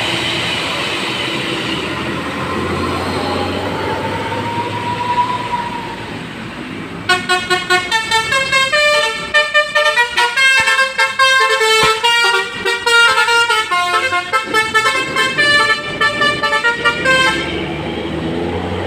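Tour bus's basuri multi-tone air horn playing a fast 'telolet' tune of short, quickly changing notes. It starts about seven seconds in and stops about ten seconds later, over steady traffic and engine noise.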